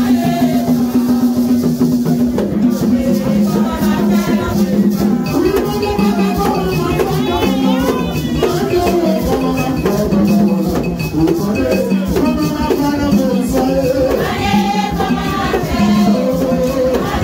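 Singing accompanied by a rattle shaken in a quick, steady rhythm.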